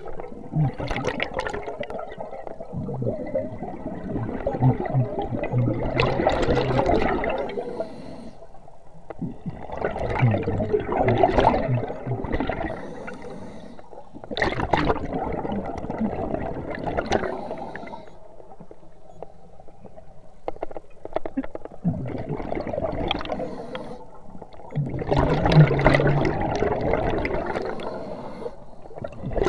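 Scuba regulator exhaust bubbles rushing and gurgling past the underwater camera in swells a few seconds long, one exhaled breath after another, with quieter inhale gaps between them.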